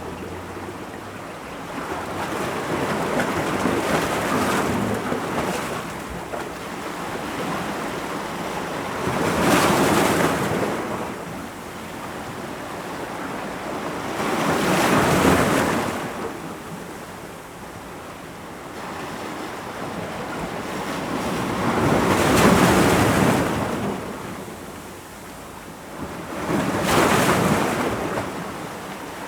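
Ocean waves breaking against rocks: a steady rush of surf that swells into a louder crash every five to seven seconds and then ebbs away.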